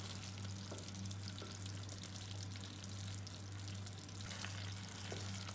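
Chicken feet adobo sizzling and bubbling in the pot as its soy-vinegar sauce cooks down almost dry, a steady crackling hiss over a low hum, with a few faint knocks.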